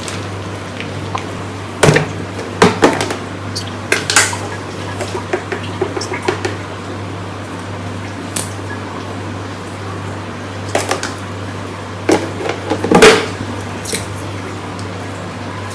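Kitchen handling noises: scattered clicks, clinks and knocks of dishes and cupboard doors over a steady low hum from a running appliance.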